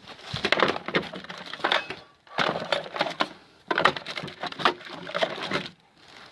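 Rapid clattering and crunching of household debris, in three bursts of a second or two each.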